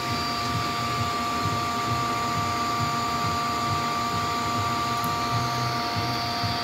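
Animated model supercharged V8 in a 1/8 scale RC car running, its small electric motor turning the rubber blower belt: a steady whine over an uneven low rumble.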